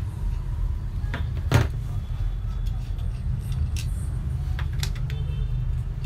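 Metal clicks and one sharp knock about a second and a half in, from a socket wrench working the nut on a vacuum cleaner motor's fan shaft, over a steady low rumble.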